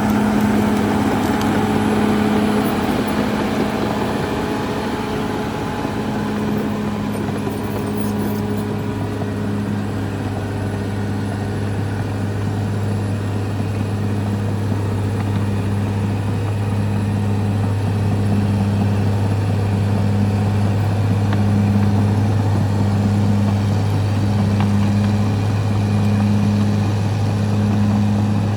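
Caterpillar D6R XL bulldozer's diesel engine running steadily with a low drone, a second hum in it swelling and fading about once a second. A rougher, hissier working noise sits over it for the first several seconds, then eases.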